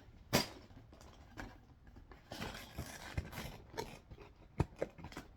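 Handling noises from a Lego set's cardboard box and packaging: rustling and scraping, with a few sharp taps, two of them louder.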